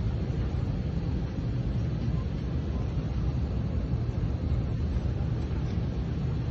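Steady cabin noise inside an Airbus A320: a constant low rumble with an even hiss over it, and no distinct events.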